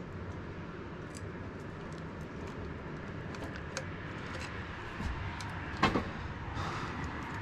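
Speaker wire and a butt connector being worked by hand during a crimp splice: scattered small clicks and handling noises, with one sharper click about six seconds in, over a steady low hum.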